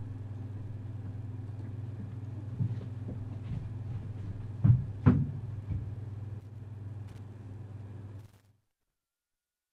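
Low steady hum picked up by a studio microphone, with a few sharp knocks and thumps, the two loudest close together a little before the middle. The sound then cuts out abruptly to dead silence.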